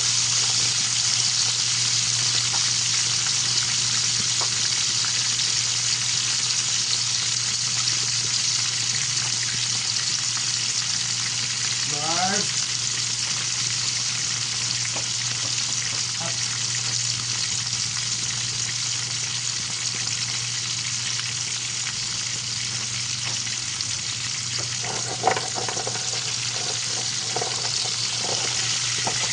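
Milkfish (bangus) frying in hot oil, a steady sizzle throughout. A short rising tone sounds about twelve seconds in, and a few knocks come near the end.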